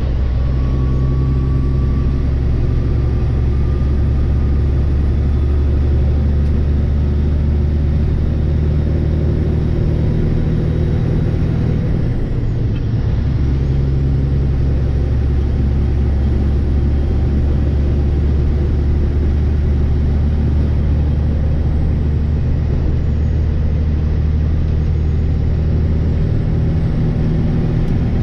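Semi-truck diesel engine droning steadily inside the cab, with road noise. The drone drops off briefly about halfway through, then picks back up.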